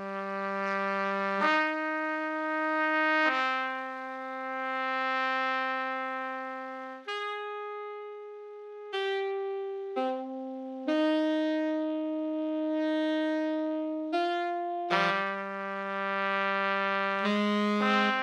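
Slow music of long held brass notes, moving from note to note every second or two, with several notes sounding together in places.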